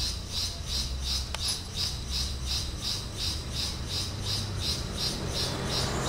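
Forest insect calling in an unbroken series of high, buzzy pulses, about four a second, over a low rumble.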